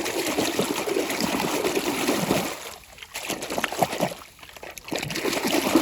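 Water splashing and trickling as a plastic toy is handled in it: a steady splashing for the first couple of seconds, then a few short, separate splashes.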